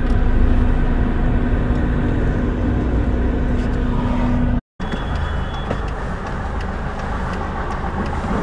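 Cabin sound of a Hyundai Verna diesel car running: steady engine and road noise with a low steady hum. About halfway through, the sound cuts out for an instant, then carries on as steady engine and street noise without the hum.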